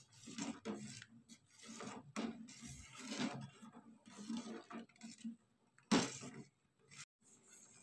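Metal ladle stirring mung bean porridge in a stainless steel pot: soft irregular sloshing strokes, with one sharp knock about six seconds in.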